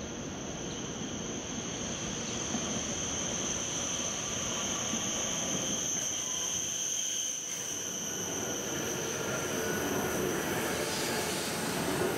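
E7 series Shinkansen train arriving at low speed and running past at close range: the steady rush and rumble of the cars, with a high, steady whine over it.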